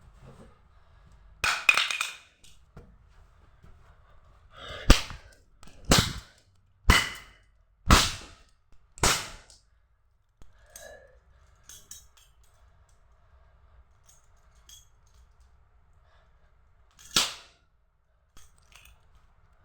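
Leather belt slapping hard against a floor: a sharp double crack near the start, then five cracks about a second apart, and one last crack after a long pause near the end.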